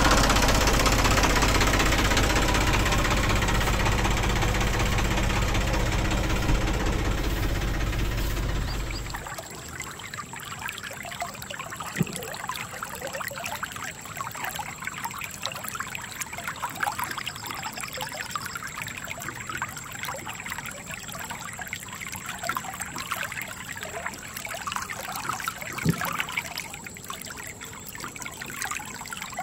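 A tractor engine running steadily, slowly getting quieter, then cutting off about nine seconds in. After that a shallow stream trickles and gurgles over stones, with two faint clicks.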